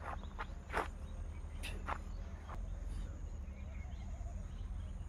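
Several sharp steps or scuffs of trainers on an asphalt road in the first two and a half seconds, over a steady low rumble, with faint short chirps near the end.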